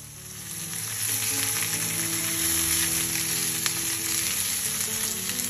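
Whole shell-on greasyback prawns sizzling as they pan-fry in hot oil, the sizzle growing louder about a second in, with a spatula turning them near the end. Soft background music underneath.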